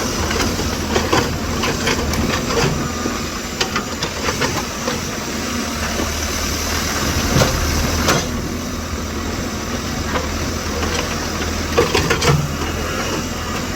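Engine of a tractor cutting a road, running steadily with a low hum and hiss, and scattered sharp knocks and clanks throughout.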